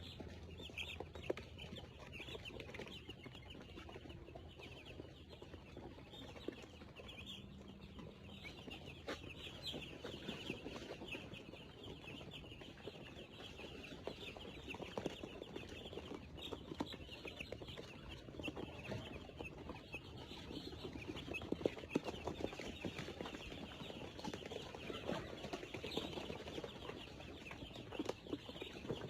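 A flock of poultry clucking and chirping steadily, many birds calling over one another, with a few sharp clicks.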